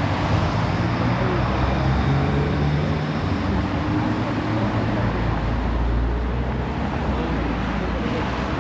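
City road traffic: a steady wash of passing vehicles, with a low engine hum that changes pitch as vehicles go by.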